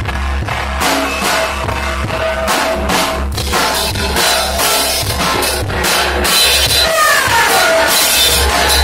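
Loud, dense noise music: pounding drum kit under a continuous wash of distorted noise, with a falling pitched sweep about seven seconds in.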